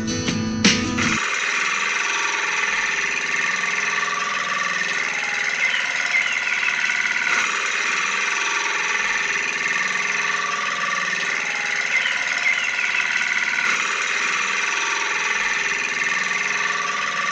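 Guitar music for about the first second, then a steady engine running sound that repeats itself in a loop about every six seconds.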